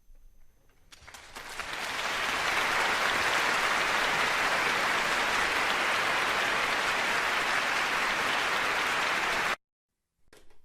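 Applause, a dense steady crackle of many hands clapping that builds up over about a second and cuts off abruptly.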